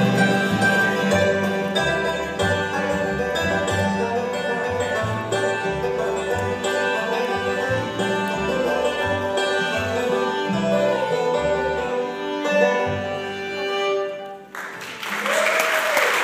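Acoustic bluegrass band playing live: fiddle, banjo, guitar and upright bass over a steady plucked bass rhythm. The song ends about fourteen and a half seconds in, and the audience breaks into applause with a cheer.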